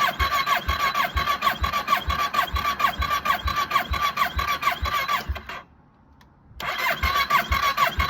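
Electric starter cranking the Kawasaki ER-6's parallel-twin engine, which does not fire, for a compression test with a gauge in the spark plug hole. The starter whines with a beat of about two compression strokes a second. The cranking stops about five and a half seconds in, then starts again about a second later.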